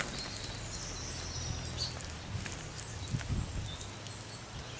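Low wind rumble on the microphone, with soft rustling and a couple of dull knocks a little past three seconds as hands reach into a carp unhooking mat to lift the fish. Faint high chirps sound early on.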